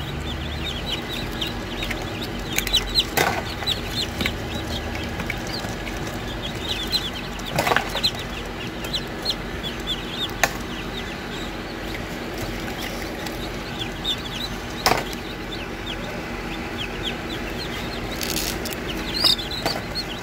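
Newly hatched chicken chicks peeping continuously, many quick falling peeps overlapping. A few sharp taps and a steady low hum sound underneath.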